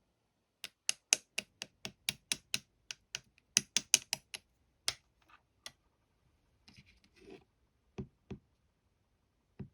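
A run of sharp clicks, about three or four a second, then a few scattered clicks and a short rustle.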